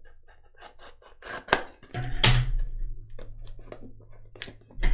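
A small knife scraping and slicing at an SSD's retail packaging: a run of sharp scratches and clicks, the loudest about a second and a half and two seconds in, and again near the end.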